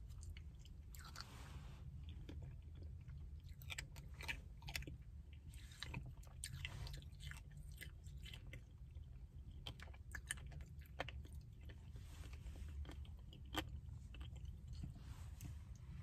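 Quiet mouth sounds of a person eating ice cream with chocolate chunks: soft chewing, lip smacks and many small scattered clicks, over a low steady hum.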